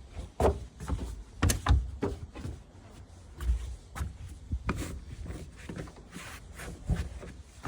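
Irregular knocks, thumps and a few sharp clicks from a rubber bed mat being handled and tucked into a pickup truck's bed.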